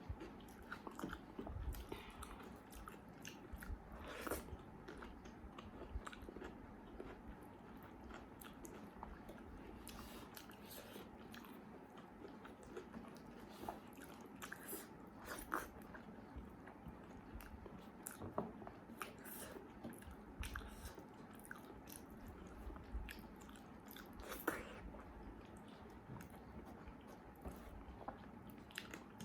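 A person eating close to the microphone: quiet chewing and mouth noises with small irregular smacks and clicks, a few louder ones about four seconds in and near the end.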